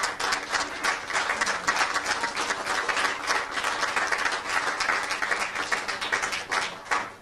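Audience applauding, many hands clapping, the applause dying away fast near the end.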